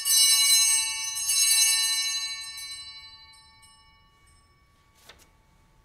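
Altar bells shaken at the elevation of the chalice just after the consecration, rung twice in quick succession and left to ring out, fading away over a few seconds. A short soft knock follows near the end.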